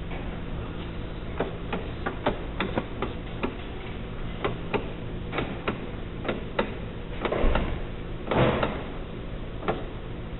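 Irregular sharp clicks and knocks of hand tools against metal parts, with two longer scraping noises about seven and eight seconds in, over a steady low hum.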